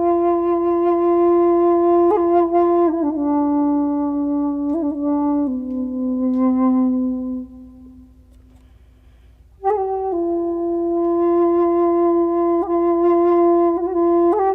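Music: a single wind instrument playing a slow melody of long held notes that step down in pitch. It breaks off for about two seconds in the second half, then comes back on a long held note.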